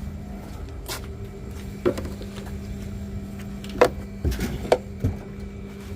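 A handful of sharp knocks and clunks, one near two seconds in and a cluster of four between about four and five seconds in, over a steady low hum.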